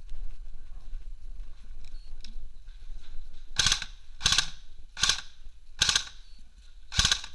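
Airsoft gun firing five times in quick succession, each a sharp crack, starting about halfway through with a short pause before the last shot.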